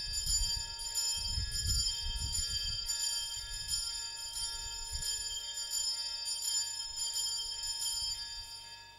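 Altar bells, a cluster of small bells shaken continuously in a steady ringing jingle, marking the elevation of the chalice at the consecration. The ringing stops abruptly near the end.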